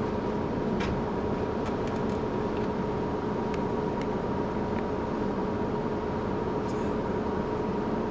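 Steady hum inside a charter bus cabin: an even noise bed with two faint held tones and a few light clicks.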